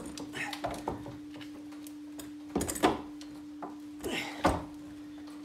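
A heavy group 49 (H8) AGM car battery being lowered into a pickup's battery tray: its plastic case knocks and scrapes against the tray and cables, with two louder clunks about two and a half and four and a half seconds in. A steady faint hum runs underneath.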